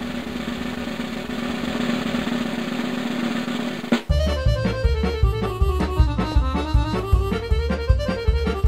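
Background music: a steady rolling rattle for about four seconds, then a lively tune with a steady beat and a bouncing melody.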